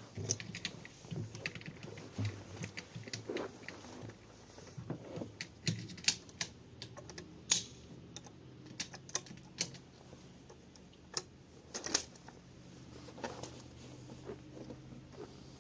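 Irregular light clicks and taps from a shotgun and shooting gear being handled, with a faint low hum underneath. No shots are fired.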